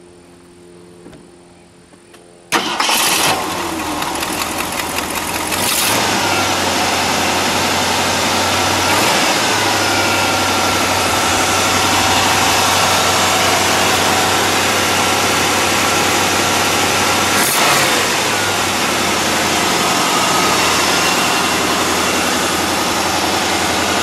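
A 1968 Mercury Park Lane's 390 cubic-inch Marauder V8 starts about two and a half seconds in. It then runs steadily at idle.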